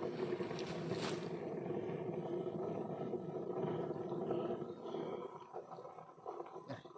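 The cut trunk of a giant ironwood tree making a steady snoring noise as its thick red sap gushes out, likened to a cow being slaughtered. The noise fades away from about five seconds in.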